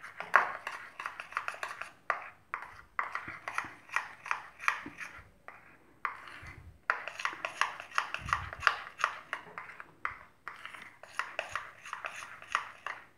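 A spoon clinking and scraping against a bowl in quick repeated strokes, about three or four a second, as cocoa powder and oil are stirred into cake batter, with a few short pauses.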